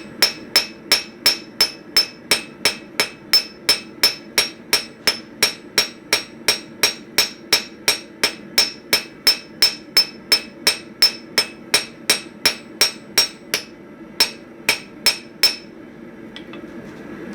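Hand hammer forging hot flat steel bar on an anvil: steady blows about three a second, each with a bright ring. The blows pause briefly, a few more follow, then they stop before the end.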